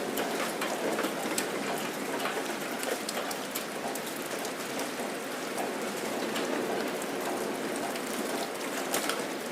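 Steady rain falling, a dense hiss with many individual drops pattering and clicking on surfaces.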